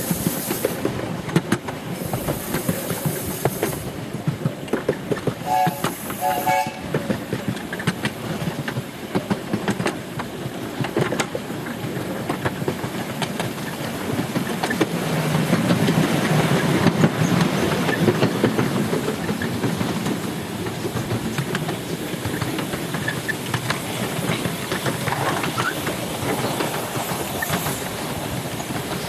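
A 7¼-inch-gauge miniature railway train heard from aboard an open carriage: a steady clatter of wheels over the rail joints with the train's running rumble, which swells louder midway. A few short whistle notes sound about six seconds in.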